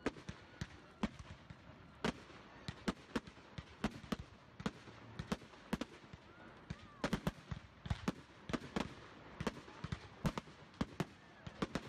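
Aerial fireworks bursting: a rapid, irregular string of sharp pops and cracks, several a second, over a steady background hiss.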